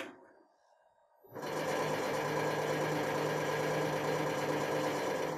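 Hydraulic press pump motor starting about a second in and running steadily with a low hum and hiss. A single sharp click comes just before it.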